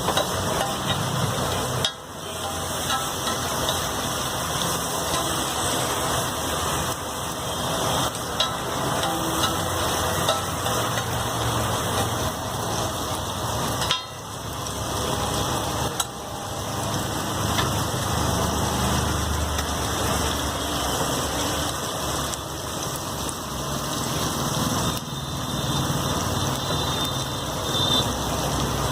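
Egg ghotala frying and sizzling on a hot street-stall griddle as it is stirred, with a steady low engine rumble underneath.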